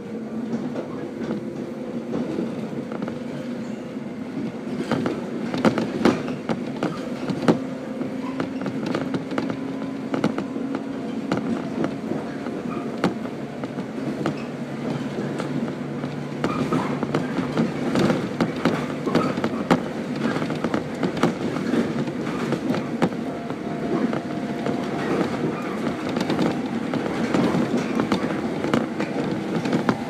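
Cabin sound of a JR 115 series electric train running: a steady hum of the running gear with the clicks of the wheels over rail joints. The pitch of the hum shifts around the middle.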